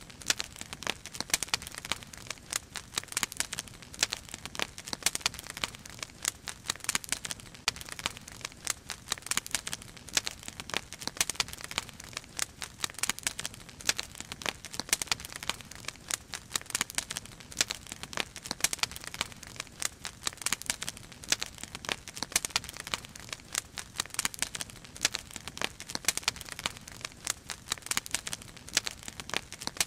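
Wood fire burning in a steel fire basket, crackling with a dense, irregular stream of sharp snaps and pops.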